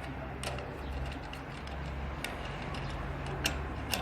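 A few scattered sharp clicks over a steady low hum.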